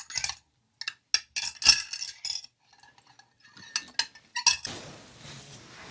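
Small metal screws, bolts and fasteners clinking against each other and their container as they are handled, freshly cleaned of rust in rust remover. Near the end a faint steady hiss sets in.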